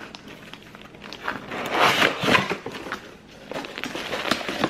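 Cardboard box scraping and plastic wrap rustling and crinkling as a wrapped appliance is slid out of its box, loudest about two seconds in, with a few sharp clicks of handling.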